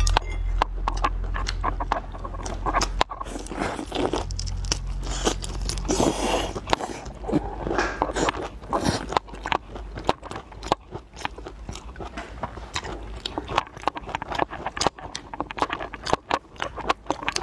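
Close-up eating of whole raw-marinated tiger prawns: shells cracking and crunching in many irregular sharp clicks, with wet chewing and biting.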